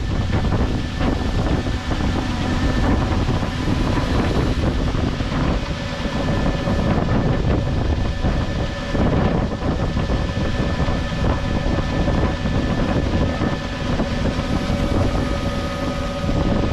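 Tractor engine running steadily under load, with the grain cart's unloading drive going, during unloading of wheat into a semi-trailer; several constant machine tones sit over a low rumble, with some wind noise.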